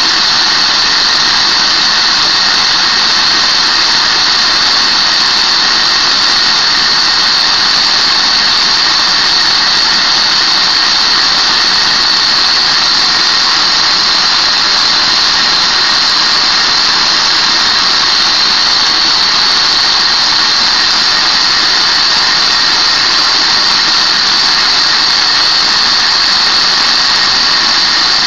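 Lego vibrating-lever engine with opposed double-acting pistons running on vacuum suction: a loud, steady, high-pitched rush of air through its valves, close to a whistle. It runs smoothly without knocking, its broken piston having been fixed.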